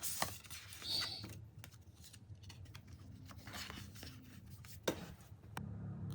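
Rustling with scattered light clicks and taps, as of small things being handled.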